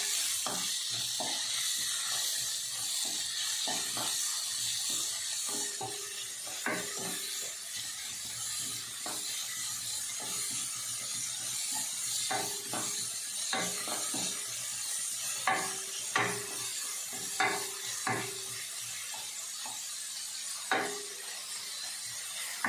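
Sliced onions sizzling gently in ghee in a stainless steel kadai, stirred with a wooden spatula. The spatula knocks and scrapes against the pan irregularly, with a few louder knocks in the second half, some leaving a brief metallic ring.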